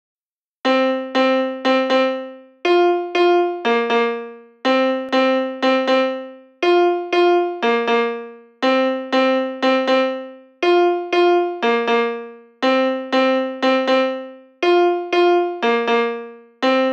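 Instrumental intro of a hip-hop beat: a piano-like keyboard plays a short looping riff of struck notes that fade away, starting about half a second in, with no drums yet.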